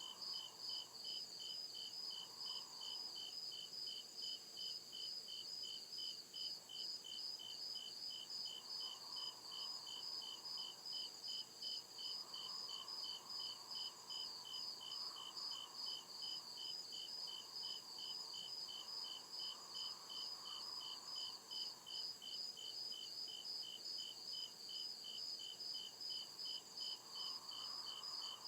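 Crickets chirping in a steady, even rhythm of high chirps, several a second, with no breaks.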